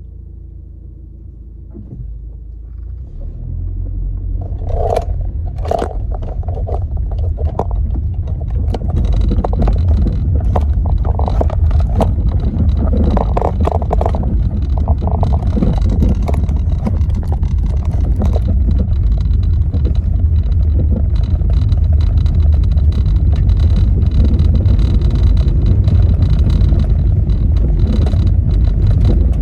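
Car driving, heard from inside the cabin: engine and tyre rumble that grows louder over the first several seconds as it gathers speed, then holds steady, with many small scrapes and ticks over it.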